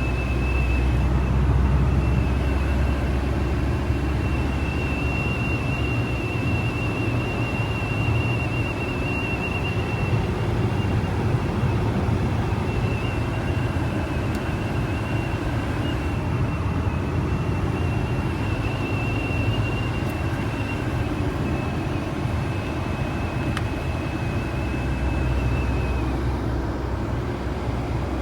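Car engine running with the air conditioning on, and a thin, high, steady whistle from the A/C system over the engine's low rumble. The whistle stops abruptly about two seconds before the end while the engine keeps running.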